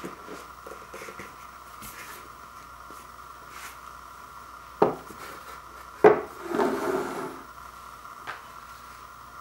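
Cardboard lid of an LP box set lifted off and put down on a wooden floor: two sharp knocks about a second apart, then a short scraping slide. A faint steady whine runs underneath.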